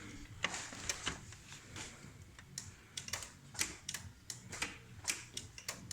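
Irregular light clicks and taps, about fifteen of them, unevenly spaced.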